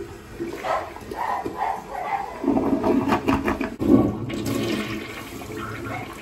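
Toilet being plunged: water sloshing and gurgling in the bowl. About two and a half seconds in, the clog gives way and the bowl drains with a loud rushing gurgle, like a flush.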